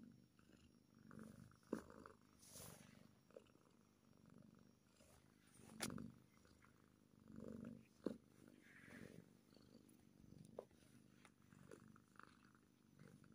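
Kitten purring faintly, in low swells that rise and fade about every second and a half. A few sharp clicks stand out above the purr.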